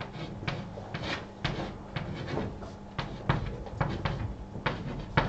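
Sheets of paper being handled and rustled, with scattered light knocks and clicks at irregular intervals.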